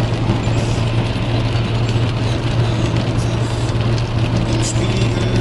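Steady cabin noise of a car driving at motorway speed in the rain: a low engine and road drone with tyre noise on the wet surface.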